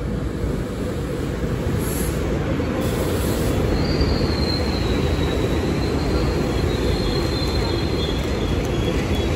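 SEPTA Regional Rail electric train rumbling into an underground station platform. About three and a half seconds in, a high, thin metal squeal sets in and holds, drifting slightly lower.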